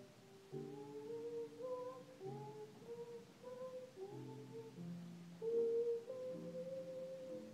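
Children's choir singing a slow melody, notes held and moving in steps, with upright piano chords beneath.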